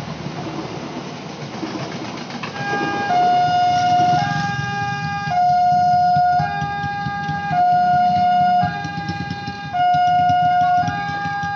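Rumble of a passenger train running past, giving way after about two and a half seconds to a loud two-tone hi-lo siren that alternates evenly between a higher and a slightly lower tone, about one tone a second.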